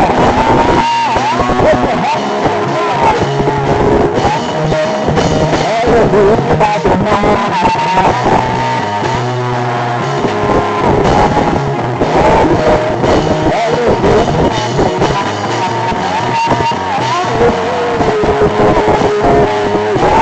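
Loud, continuous band music with guitar, a sliding melody line weaving over a dense accompaniment.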